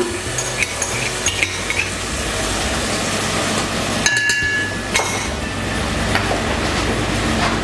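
A spoon clinks and scrapes against a cup and a pot as milk mixed with mustard is poured in and scraped out. Several light clinks come in the first two seconds, and one louder ringing clink about four seconds in.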